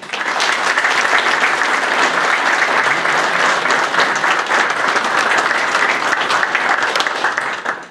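Audience applauding, a dense steady clapping that starts at once and stops abruptly near the end.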